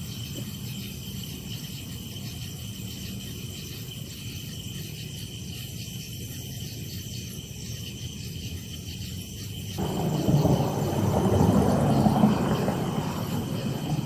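Steady, high-pitched trill of crickets in the background. About ten seconds in, a louder rumbling noise rises, holds for a few seconds and fades.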